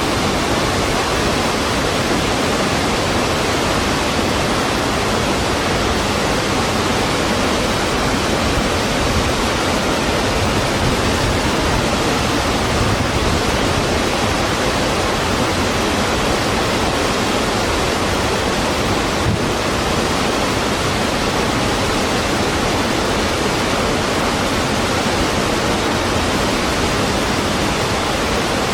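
A waterfall: a steady, dense rush of falling water, even and unbroken.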